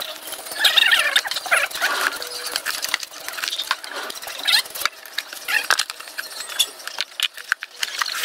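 A knife and hands scraping the hair off a scalded pig carcass: rapid, irregular rasping strokes, with short high-pitched squeaks mixed in.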